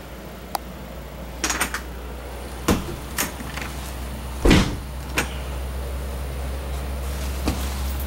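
Scattered knocks and clicks of a travel trailer's interior doors and latches being handled, the loudest about four and a half seconds in, over a steady low rumble.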